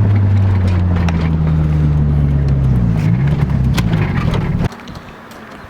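Mitsubishi Eclipse GST's turbocharged four-cylinder engine droning steadily while driving, heard from inside the cabin. Its pitch wavers about three seconds in, and the sound cuts off suddenly near the end.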